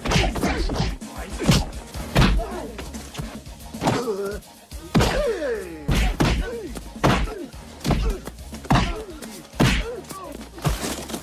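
Film fight sound effects: a dozen or so punch and kick impacts, sharp whacks and thuds, with grunts and shouts from the fighters between them, over background music.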